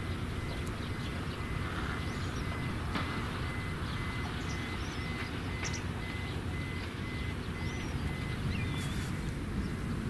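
A vehicle's reversing beeper sounding a steady series of high beeps, about two a second, stopping about nine seconds in, over a low steady rumble of traffic. A few faint short bird chirps come through.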